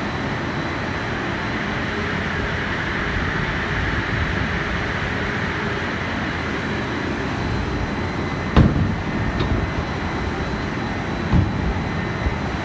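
Snack pellet production line machinery running with a steady mechanical noise. A sharp knock comes about eight and a half seconds in, and a duller thump near the end.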